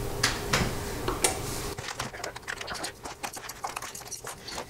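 Hands handling a plastic Chevrolet Trailblazer instrument cluster, making a few sharp clicks, then a quick run of small irregular clicks and taps from about two seconds in.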